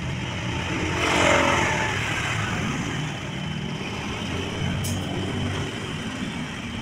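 Steady low rumble of nearby road traffic, with a vehicle passing a little louder about a second in.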